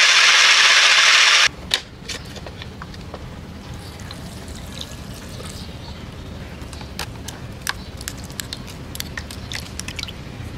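Countertop blender running, stopping suddenly about a second and a half in. Then purple potato purée poured into a mesh strainer, with scattered drips.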